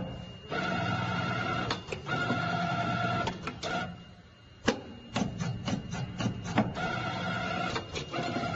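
CNC bending machine feeding a metal strip through its rollers on a 500 mm encoder calibration test. The feed motor whines in stretches of about a second, stopping and starting, with sharp clicks and knocks in between.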